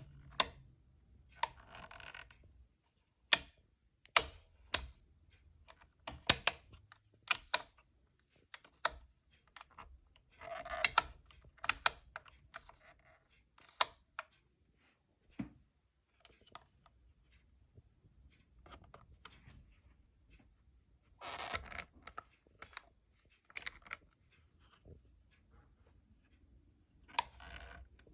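Irregular sharp metallic clicks and knocks with a few short scraping, rubbing passages: hands working on a Sears Kenmore 158 sewing machine's parts.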